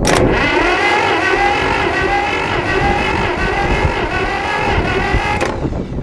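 Starter motor cranking the four-cylinder flathead engine of a 1960s Massey Ferguson backhoe for a compression test on cylinder two. It turns over with a steady whine and stops about five and a half seconds in. That cylinder reaches only a little under 90 psi against about 120 on the other three, which the owner guesses may be a valve not closing all the way.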